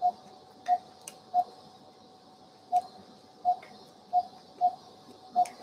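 Patient monitor in the operating theatre beeping with the anaesthetised puppy's pulse: about eight short beeps at one steady pitch, roughly two-thirds of a second apart but not evenly spaced. A few faint clicks come in between them.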